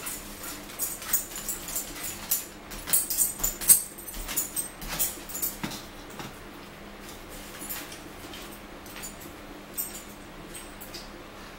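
Crisp crinkling and crackling of paper food wrappers and packets, with eating noises, as fast-food sandwiches and fries are handled and eaten at a table. The clicks come thick over the first six seconds, loudest about four seconds in, then thin out over a steady low hum.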